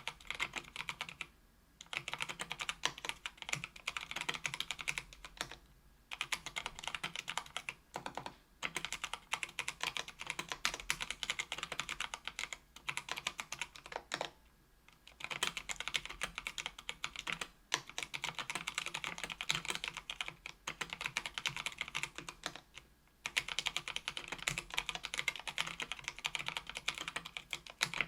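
Typing on a 65% aluminium mechanical keyboard with stock, unlubricated Kailh Brown tactile switches on an aluminium plate: rapid runs of key clacks in bursts of a few seconds, broken by short pauses.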